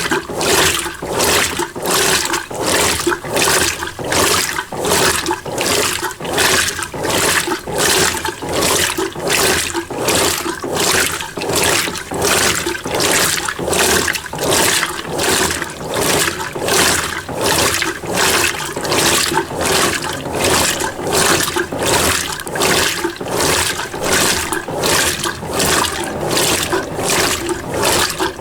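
Mueller Energy 8 kg top-load washing machine agitating its wash at a low water level: water and clothes sloshing back and forth in a steady rhythm, about one and a half strokes a second.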